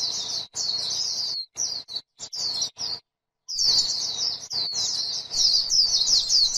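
White-eye (chim khuyên) singing a rapid, high-pitched twittering warble in long phrases. The song is broken by several abrupt short gaps, the longest about three seconds in.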